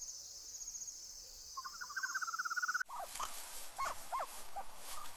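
Insects chirping steadily in a woodland ambience, joined by a fast pulsing trill about two seconds in. A little under three seconds in, the ambience cuts to a different one with a run of short, high, squeaky calls from young big-cat cubs.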